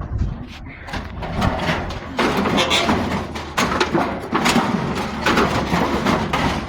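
A heavy piece of scrap metal being pushed and dragged up onto a truck, scraping and clattering in several rough surges, each full of sharp knocks.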